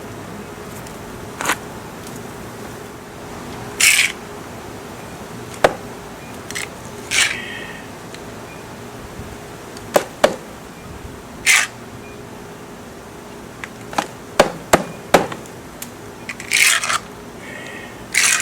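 Honey bees humming steadily, with a string of sharp clicks, knocks and short scrapes scattered through.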